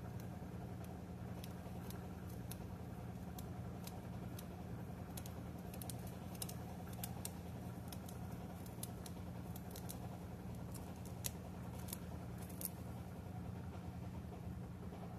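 Small knife cutting a celery stalk held in the hand: many short irregular clicks as it slices through and pieces drop into the bowl, over a steady low hum.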